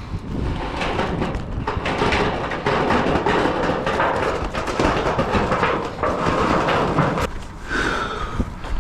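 Irregular knocking and rattling of metal roofing panels being handled and worked on the roof, with a brief falling squeak near the end.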